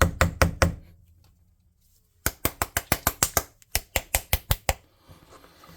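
A bottle of paint being shaken hard: two runs of fast, even clacks, about five a second, with a pause of about a second and a half between them.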